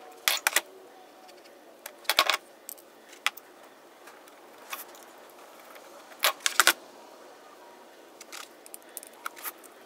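Steel parts of a Fiat MultiAir valve spring compressor tool clinking and clattering as they are handled and fitted together. The loudest clusters of clinks come just after the start, about two seconds in and about six and a half seconds in, with lighter ticks between.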